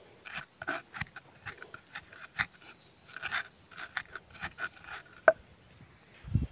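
Wooden pestle crushing and grinding chillies, tomatoes and shrimp paste in a flat cobek mortar to make sambal: irregular crunching and scraping strokes, with a sharp click about five seconds in and a dull thump near the end.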